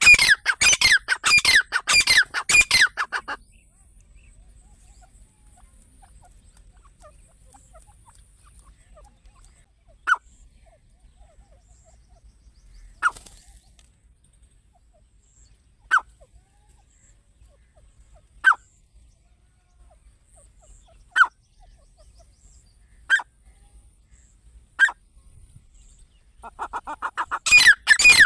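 Partridge calling: a fast run of loud, harsh repeated calls that stops about three seconds in, then seven single short sharp calls two to three seconds apart, and another fast run of calls starting near the end.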